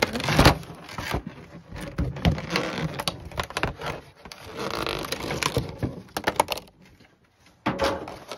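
Clear plastic shrink wrap being torn and pulled off a boxed set of Pokémon trading cards right at the microphone: irregular crinkling and crackling with handling scrapes. It goes quieter about seven seconds in.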